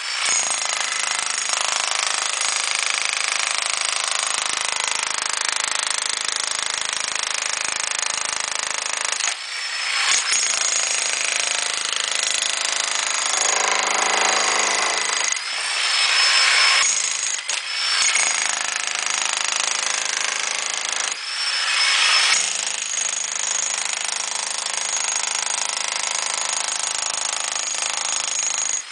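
Bosch GSH 11 VC demolition hammer running continuously with a chisel bit, hammering into brick and mortar, with a few short breaks where it stops and starts again.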